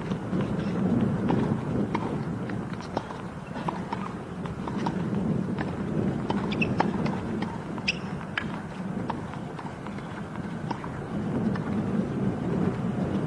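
Tennis balls bouncing on a hard court between points: scattered light taps at irregular intervals over a steady low rumble of outdoor court ambience.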